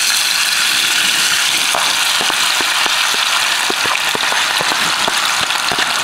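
Freshly cut potato strips frying in a little hot oil in a small pan: a steady, dense sizzle with scattered crackles.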